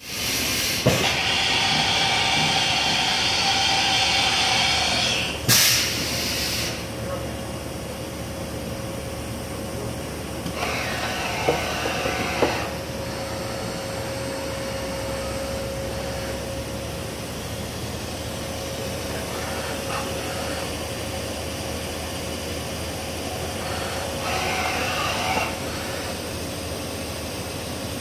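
Milltronics RH-19 CNC vertical machining center running: a loud hiss for about the first five seconds, then a steady whine over a low hum, with shorter bursts of hissing and whirring about 11 and 25 seconds in.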